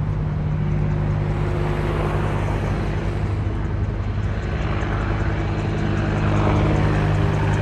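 AH-64E Apache attack helicopter flying by, a steady drone with low humming tones from its rotors and engines, growing a little louder near the end.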